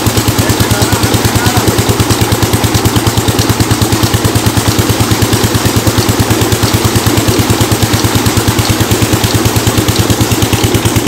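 Tubewell pump's stationary engine running steadily with a rapid, even beat of thuds, over the rush of water gushing from the outlet pipe and splashing into the concrete tank.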